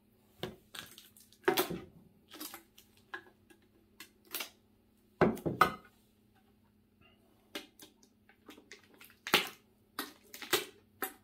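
Metal collector card tins being picked up, moved and set down on a tabletop: irregular knocks and clinks with some rustling, the loudest about a second and a half in, around five and a half seconds and near nine and a half seconds.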